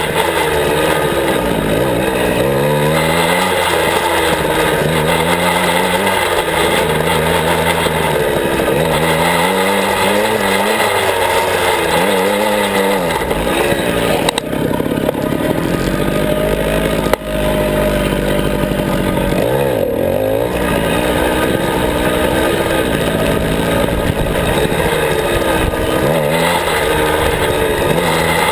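Small 49cc two-stroke engine of a Suzuki minicross heard close up while ridden, revving up and dropping back over and over as the throttle is worked. Around the middle it holds a steadier pitch, broken by a couple of sharp knocks.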